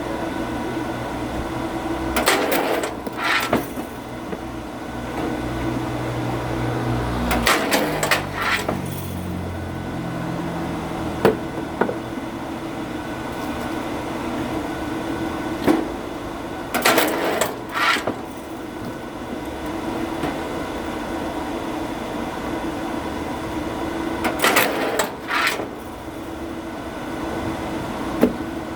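Wood-splitting machine running steadily while oak logs are split, with four bouts of cracking and knocking wood spaced several seconds apart.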